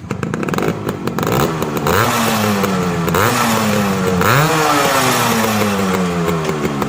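Yamaha RX100's single-cylinder two-stroke engine running at the exhaust silencer, revved three times, each rev rising quickly and then slowly dropping back toward idle, with uneven popping in the first second or so.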